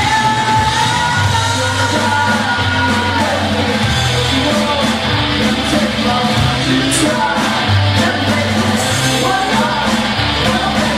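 Live rock band playing: a lead singer sings over electric guitar, bass guitar and drums.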